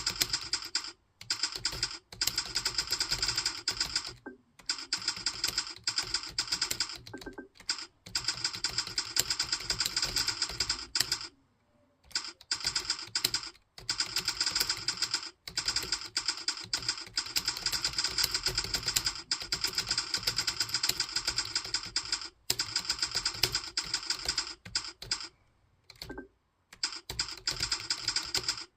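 Fast typing on a computer keyboard: a rapid, unbroken run of key clicks with brief pauses, the longest about eleven seconds in.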